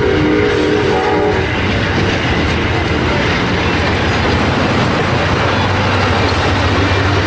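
Amtrak passenger train cars rolling past at speed, wheels running on the rails in a steady, loud rolling rattle. The train's horn chord is still sounding at the start and cuts off about a second in.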